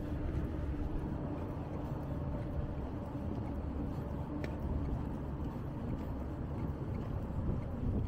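Wind buffeting the microphone, an uneven low rumble.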